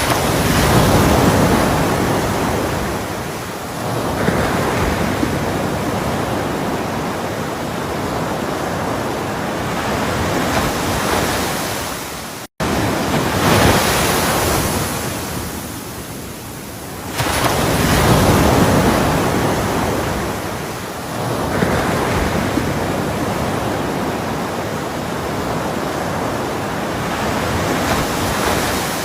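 Ocean waves breaking in a series of surges a few seconds apart, each coming in as a rush of noise and easing off as it washes back. The sound cuts out for an instant about twelve and a half seconds in.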